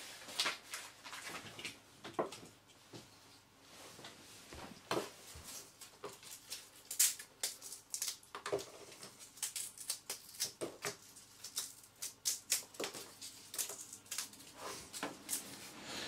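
Hands rummaging and handling Velcro strips and their backing paper: scattered soft rustles and light irregular clicks.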